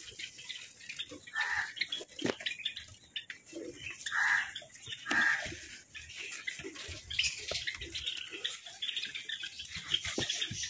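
Java sparrows giving a few short calls, about three of them, amid close rustling of grass nest material and handling knocks.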